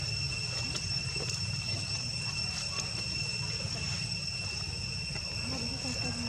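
Insects trilling steadily at a high pitch over a low background rumble, with a few faint clicks.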